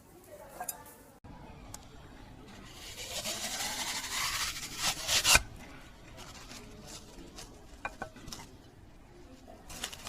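Slime being squished and stretched by hand, a wet crackling that swells with a rising squeak and ends in a few sharp snaps about five seconds in, followed by quieter clicks and squelches.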